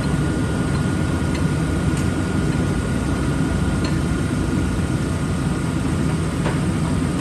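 Poreba gap bed engine lathe running with its large four-jaw chuck turning: a steady low machine hum with a faint steady whine, and a few light clicks.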